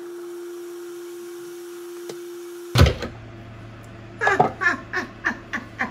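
Electric food processor motor running steadily while it blends a dry flour mix, then cutting off abruptly with a thump about three seconds in. A low hum and a few murmured words follow.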